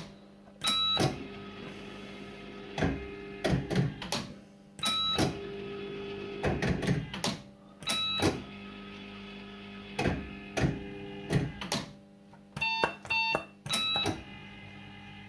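Firecracker fruit machine being played: mechanical clicks and clunks from the buttons and reels, with short electronic bleeps every few seconds and a quick run of bleeps near the end, over a steady electrical hum.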